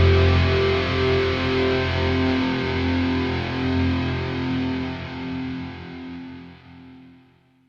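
Rock music with distorted electric guitar: a held, pulsing chord rings on and fades away to nothing near the end.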